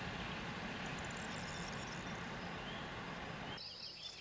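Distant freight train of open wagons rolling away along the line, a steady low rumble with faint bird chirps over it. About three and a half seconds in it cuts off abruptly to a quiet background of a steady high insect buzz and bird calls.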